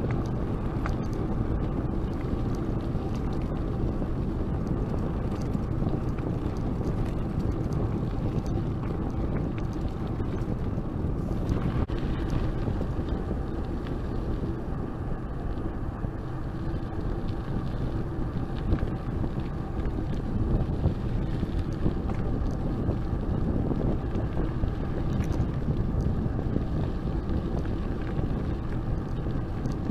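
Bicycle in motion: the tyres rolling steadily with a low rumble of wind on the microphone and faint scattered ticks.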